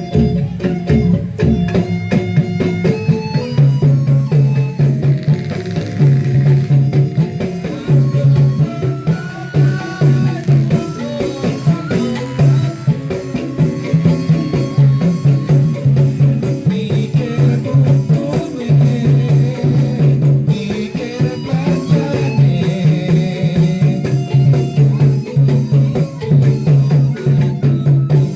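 Music with a low bass note pulsing over and over, melodic lines above it, and busy percussion with shaker and tambourine rattles.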